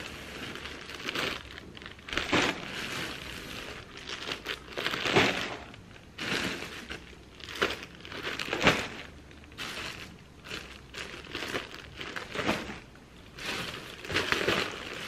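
Clear plastic bags packed with yarn hanks crinkling and rustling as they are lifted out of a cardboard box and handled, in irregular bursts with a few sharper, louder crackles.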